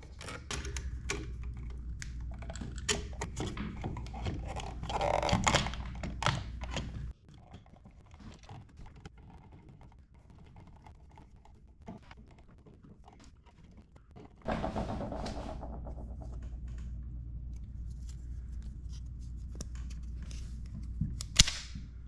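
Clicks, knocks and scraping of an electrical receptacle being pushed into its wall box and screwed down, loudest about five seconds in. After about seven seconds the handling sounds drop to a few faint ticks, then pick up again with a steady low hum.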